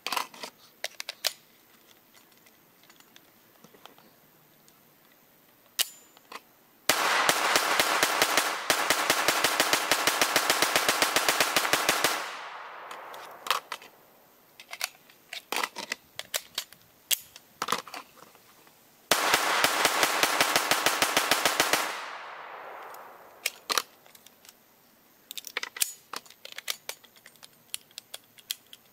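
AR-15 rifle with a lightweight bolt carrier group firing two strings of rapid semi-automatic shots: one about five seconds long starting some seven seconds in, and one about three seconds long starting near the nineteenth second. Each string ends in a ringing echo. Metallic clicks and rattles of magazine handling come between and after the strings.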